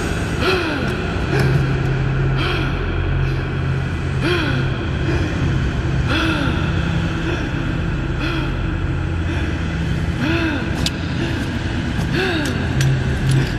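Dark ambient drone music: a sustained low synthesizer drone with a short rise-and-fall pitch sweep repeating about every two seconds over a textured, hissing layer.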